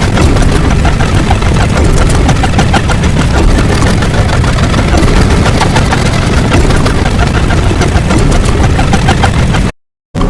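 A loud, dense, steady rumble peppered with fine crackling clicks, which cuts off abruptly near the end into a brief silence.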